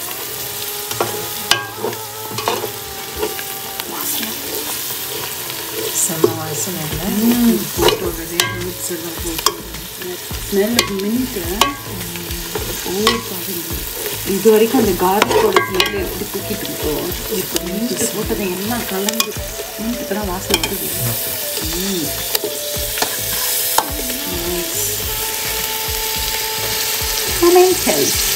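A slotted stainless-steel spoon stirring and scraping frying masala in a stainless-steel pot, with repeated clicks of the spoon against the metal over a steady sizzle. The hiss grows stronger in the last several seconds as sliced tomatoes go into the hot pot.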